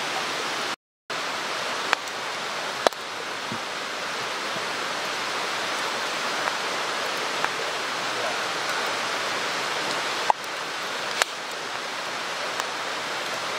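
Steady rushing of a mountain stream, with a few sharp clicks or pops on top of it. The sound cuts out completely for a moment about a second in.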